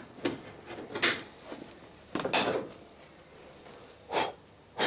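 Wooden plank being handled against the boat's stem: a few sharp wooden knocks and short scraping rubs, with pauses between them.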